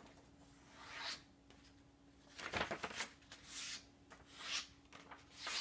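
Sheets of construction paper rustling as they are handled and folded, in about five short swishes.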